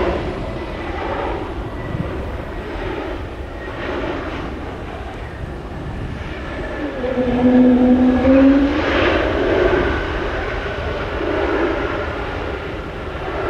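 Frontier Airbus A321neo's Pratt & Whitney geared-turbofan engines as the airliner touches down and rolls out on the runway. The engine noise swells to a loud, low tone about halfway through, then eases off.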